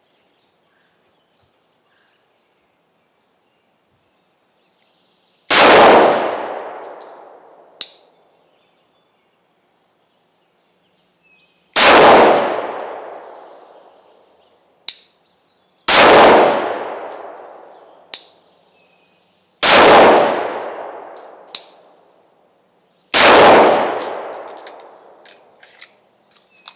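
Glock 19X 9 mm pistol firing 124-grain rounds: five single shots spaced about four to six seconds apart, each with a long echo fading over about two seconds. A short sharp tick follows each shot.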